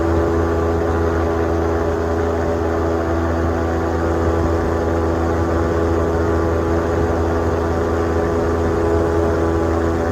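An engine running steadily at constant speed: a continuous low drone with no change in pitch.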